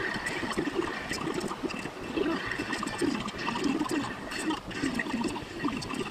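Heavy rain on a car's roof and windshield heard inside the cabin, with the wipers sweeping, in sped-up playback.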